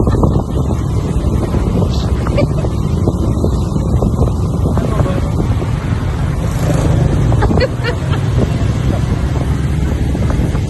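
Loud, steady wind rumble buffeting the microphone, like an open-air ride in a moving vehicle or boat.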